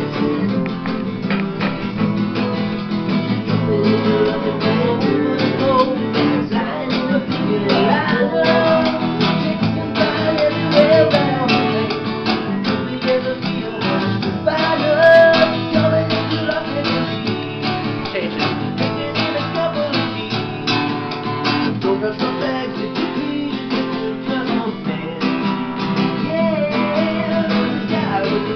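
Acoustic guitar being strummed, a steady run of chords played without a break.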